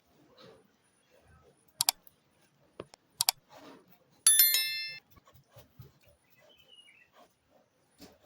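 Two quick pairs of sharp metallic clicks, then a bright metallic ding that rings and dies away over under a second, with faint scattered noises between.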